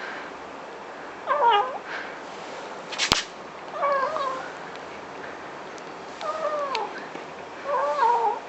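Hungry stray kitten making short meowing 'nmm-nmm' calls as it eats cat treats, four times with a wavering, falling pitch. A single sharp click sounds about three seconds in.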